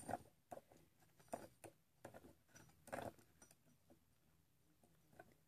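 Faint, scattered clicks and rubs as a tape dispenser's plastic gear wheel, mounted on a box, is turned by a finger; they come every half second or so for the first three seconds, then it goes near silent.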